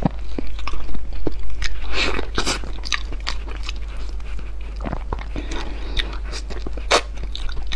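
Close-miked mouth sounds of eating very ripe durian flesh: chewing and lip smacks, with many small clicks throughout.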